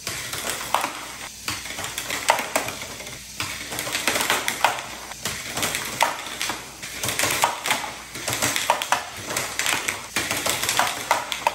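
Plastic VEX IQ Slapshot discs being fired by a robot's roller shooter and clattering and bouncing onto the field tiles: a quick, irregular run of sharp clicks and knocks.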